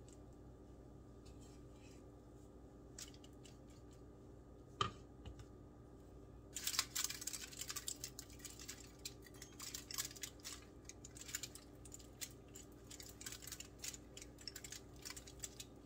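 Quiet room with a few light clicks, then, about six and a half seconds in, a busy run of small quick scrapes and clicks from a spatula working buttercream frosting onto a cake layer.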